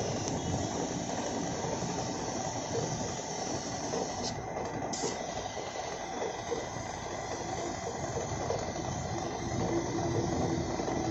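Compressed-air gravity-feed spray gun hissing steadily as it sprays paint onto a car bumper, with a short break in the hiss about four seconds in.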